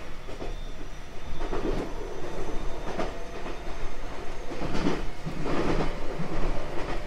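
Running sound heard aboard a 521 series electric multiple unit with Toshiba IGBT inverter drive: a steady low rumble with irregular clatter of wheels over the track and faint thin steady tones above it.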